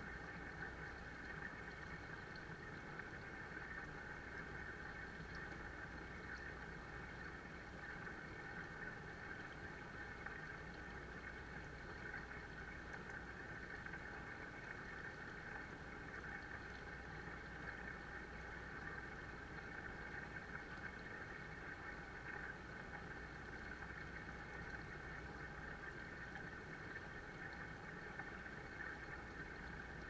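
Water from a small pond waterfall splashing steadily into a koi pond, a constant even rush.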